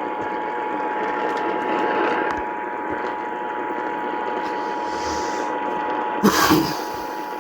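Emergency Alert System two-tone attention signal broadcast over the radio, a steady dual tone sounding over a constant hiss of reception noise, with a brief burst of noise about six seconds in.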